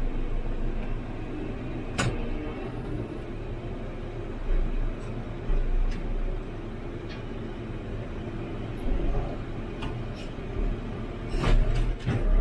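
JCB 3CX backhoe loader's diesel engine running steadily, heard from inside the operator's cab, with a sharp knock about two seconds in and a few more knocks and clunks near the end.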